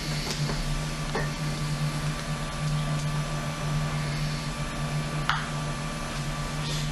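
Background of a taped interview recording: a steady low electrical hum under even hiss, with a faint click about a second in and another about five seconds in.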